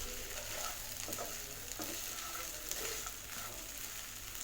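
Chicken pieces in pepper masala frying in oil in an uncovered pan, sizzling steadily while being stirred. This is the final open-pan sauté of the dish.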